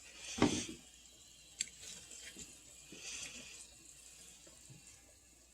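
Faint water sounds from chicken cooked in the microwave in water being handled and pulled apart in its cooking liquid, with a louder slosh about half a second in and a few light clicks after.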